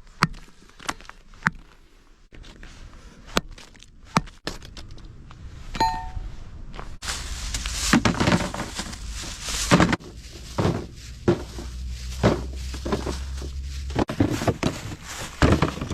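Iron hammer striking lumps of coal, breaking them into smaller pieces: single sharp knocks at first, a short ringing metallic clink about six seconds in, then denser clattering of coal pieces in the second half.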